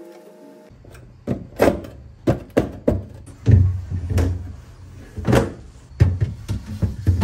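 Plastic refrigerator parts knocking and clunking as the crisper drawer and a shelf are pulled out and handled: about a dozen irregular knocks, some loud.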